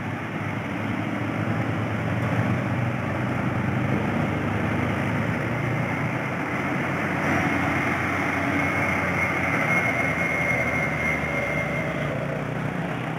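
Diesel engine of a cargo truck labouring up a steep hairpin bend, mixed with passing motorcycles and road traffic. A faint high whine sits over the engine from about halfway until near the end.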